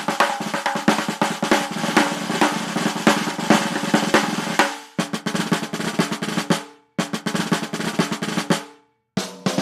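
Drum rolls played back to back as separate clips: a long roll fades out about halfway through, two shorter rolls of about two seconds each follow, each dying away, and a new roll starts just before the end.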